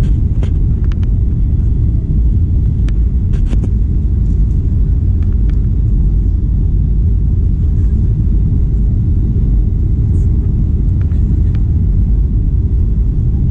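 Steady low rumble inside the cabin of a Boeing 737-800 airliner, heard from a window seat, with a few faint clicks about half a second and three and a half seconds in.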